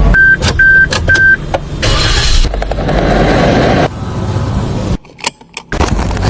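Three short electronic beeps in quick succession from a Suzuki Jimny, among sharp clicks and knocks of the car being handled, followed by a steady rushing noise.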